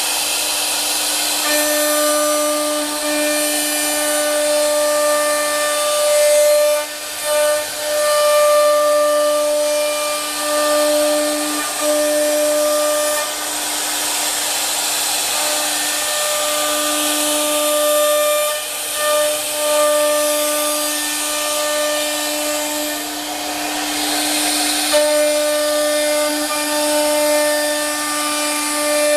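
CNC router running a job: the air-cooled spindle gives a steady whine and cutting hiss, while the stepper motors' tones break off and restart every second or two as the axes move.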